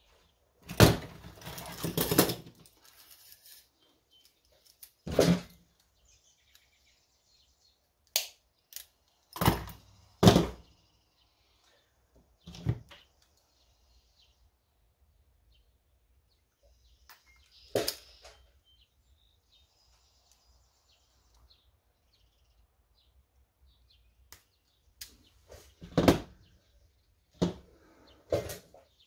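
Scattered knocks and clicks of tools and small parts being handled on a workbench, about ten separate sounds with long quiet gaps, and a busier cluster about a second in.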